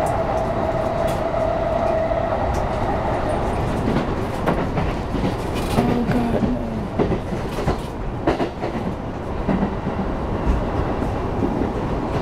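Interior noise of a moving Tokyo commuter train car: steady running rumble with a whine for the first couple of seconds, then the clicks and rattle of the wheels over the rails.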